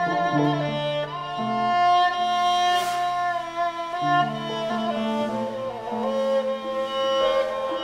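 Cretan lyra bowed in a slow melody, sliding between long held notes, with lower held notes sounding beneath it.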